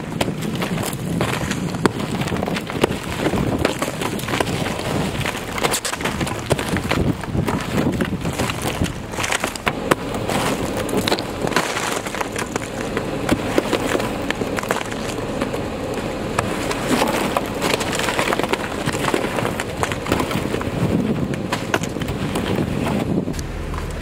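A snow brush sweeping and knocking a crust of ice and snow off a pickup truck's hood and windshield: a dense run of quick scrapes, knocks and breaking ice slabs, over steady wind noise.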